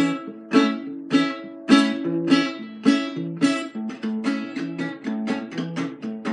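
Acoustic guitar strummed in a steady rhythm, a short repeating chord pattern from a beginner; the strums come about twice as fast from about four seconds in.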